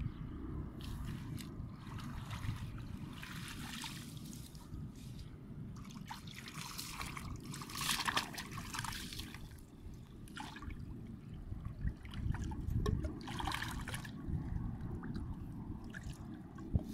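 Shallow water trickling and splashing as hands and a wooden stick work in it, in several irregular surges, over a steady low rumble.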